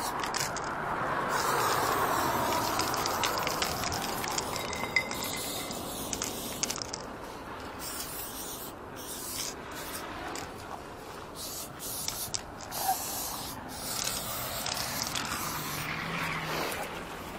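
Aerosol spray-paint can hissing in long strokes with short breaks between them, laying black paint onto a corrugated metal sheet.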